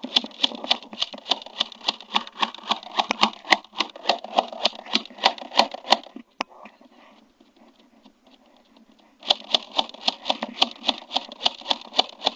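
Running footsteps on dirt and gravel, about four steps a second. They stop about six seconds in and start again about three seconds later.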